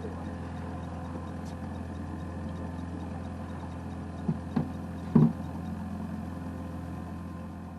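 Engine running steadily at low speed, with three short knocks about four to five seconds in, the last the loudest.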